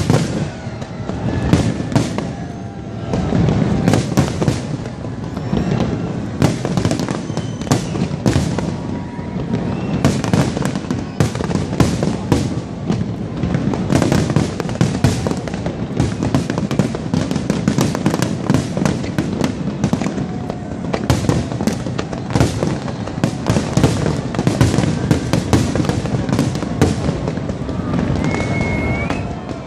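A dense fireworks barrage: aerial shells bursting in rapid succession, a near-continuous run of bangs and crackling.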